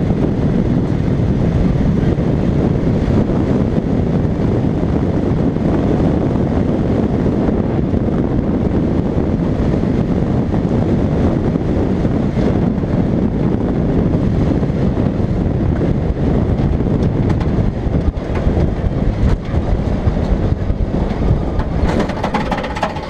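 Steady low rumble of a vehicle moving over rough grassland, picked up by a camera mounted on its roof, with wind buffeting the microphone. The noise eases a little near the end, where a few knocks and rattles come through.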